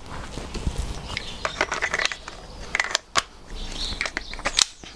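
Clicks and plastic rattles of an airsoft M4 replica being handled, its 9 mm-type magazine worked in an ARES magazine-well adapter. Two sharper clicks come about three seconds in and near the end.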